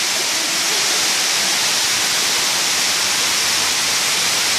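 Steady rush of water gushing from the open chute of a large industrial cheese mixer and flooding onto the floor.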